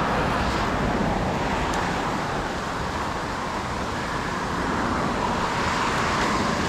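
Steady rushing outdoor background noise with no distinct events, gently swelling and easing in level.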